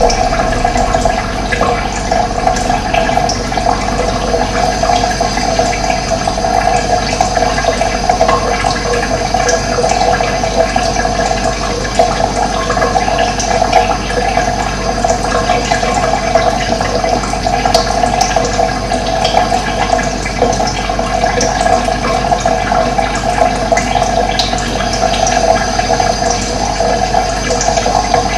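Running water flowing steadily, a continuous even rush.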